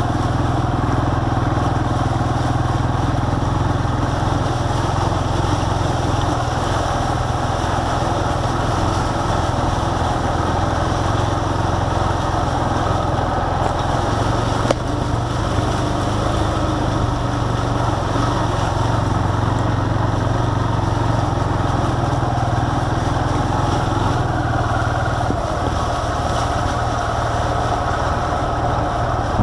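ATV engine running steadily as the quad rides along a dirt trail, with a single sharp click about halfway through.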